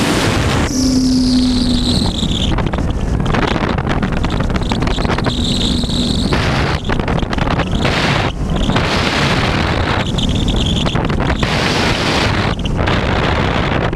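Heavy wind rush on the onboard camera's microphone as an RC airplane flies. Its brushless electric motor and propeller whine over it in stretches that come and go about three times, each falling slightly in pitch.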